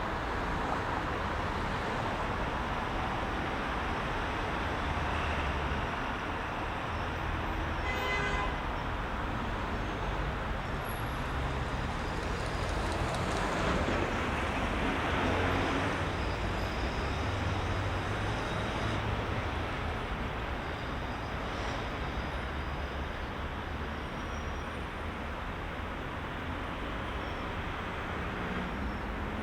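Heavy rush-hour city traffic: a steady wash of engines and tyres, with a short car horn toot about eight seconds in and a vehicle passing louder roughly halfway through.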